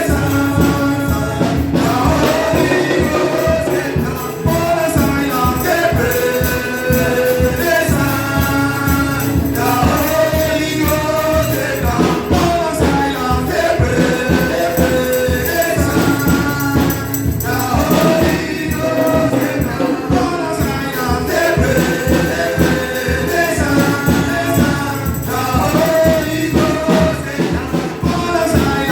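Gospel music: a choir singing over a steady beat with tambourine.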